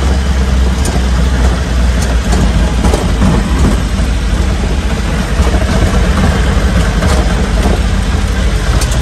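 Truck engine running steadily under way, a low rumble heard from inside the cab, with road noise.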